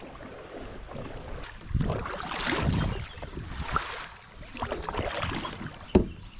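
Kayak paddle strokes: water splashing and rushing off the blades in repeated swells about once a second, with a single sharp knock near the end, likely the paddle striking the kayak.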